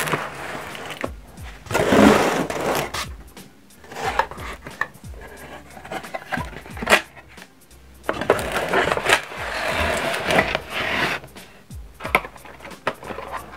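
Cardboard rustling and scraping in several irregular bursts as the flaps of a small shipping box are pushed open and a packed inner box is slid out of it.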